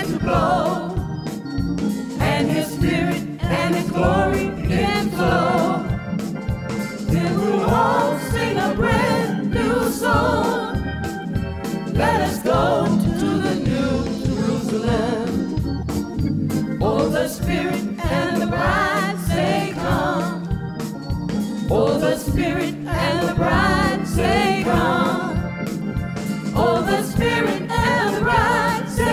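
Gospel song: voices singing over organ accompaniment.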